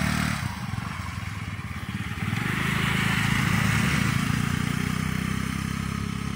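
Wind buffeting the microphone: a rough low rumble throughout, with a gust of hiss swelling from about two seconds in.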